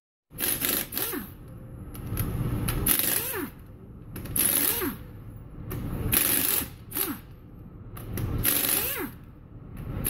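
Impact wrench rattling off a pickup's wheel lug nuts in about six short bursts, one nut at a time. A falling whine follows most bursts as the tool spins down.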